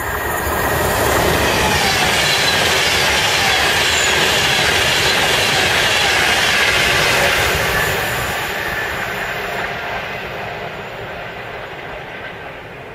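Class 390 Pendolino electric express passing at speed: the rush of wheels on rail builds in the first second, holds loud for several seconds, then fades away as the train recedes.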